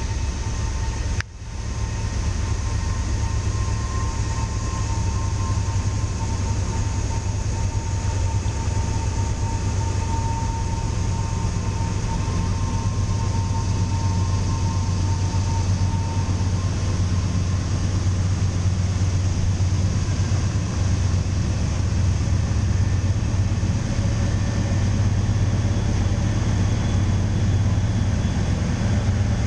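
Norfolk Southern wood chip freight train rolling along the loop: a steady, loud rumble from the train. The sound drops out briefly about a second in.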